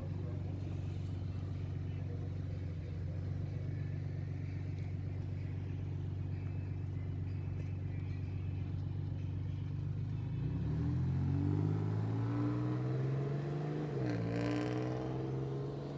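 Motor vehicle engine running steadily at a low, even pitch, then accelerating about ten seconds in, its pitch climbing with a brief drop like a gear change before rising again.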